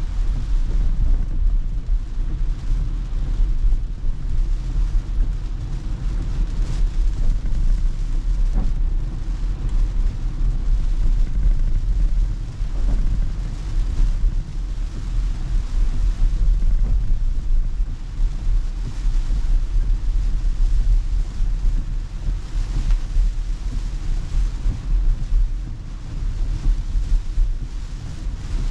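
Cabin noise of an electric car driving in heavy rain: a steady low rumble of tyres on the wet road, with rain on the roof and windshield.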